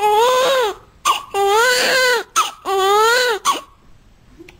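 Newborn baby crying: three wails, each arching in pitch, with a sharp gasp for breath between them. The crying stops near the end.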